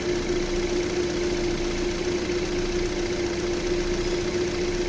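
2017 Hyundai Elantra's four-cylinder petrol engine idling steadily with a constant hum. The air conditioning is switched on, but the compressor is not engaging.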